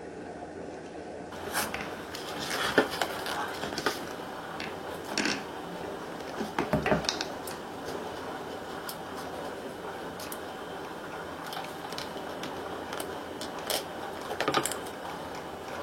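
Vinyl wrap film being handled and trimmed with a blade: irregular crackles, scrapes and clicks of the film and tool, with louder bunches of them around two to four seconds in, near seven seconds, and near the end.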